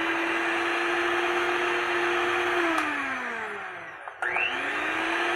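Electric hand mixer beating egg whites into a stiff-peak meringue. The motor runs steadily, winds down and stops briefly about four seconds in, then starts up again.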